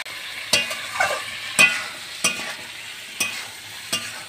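A spatula scraping and knocking against a metal kadai, about six strokes, as chicken pieces are stirred in spiced oil over a steady sizzle. The chicken is being fried down in its masala.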